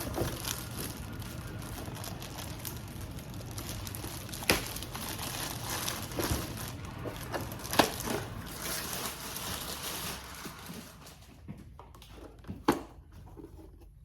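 Packaging crinkling while a new robot vacuum is unwrapped and handled, with a few sharp clicks and knocks, the loudest about eight seconds in. The crinkling dies down about eleven seconds in.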